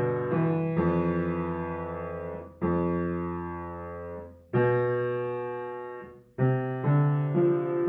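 Background piano music: slow chords, each struck and left to fade, with a new chord about every two seconds.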